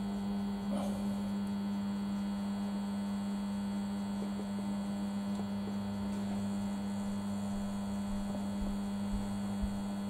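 High-current supply transformer humming steadily under heavy load, pushing about 1400 amps through a padlock's steel shackle and heating it to a glow.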